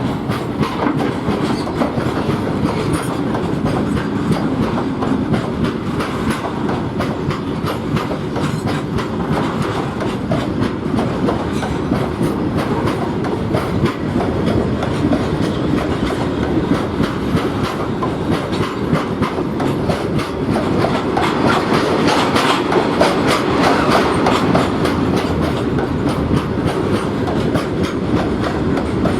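A train running past close by, its wheels clattering steadily over the rail joints with a continuous rumble underneath.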